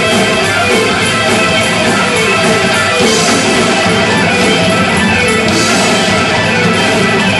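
Live rock band playing loud: an electric guitar solo over drums and the rest of the band.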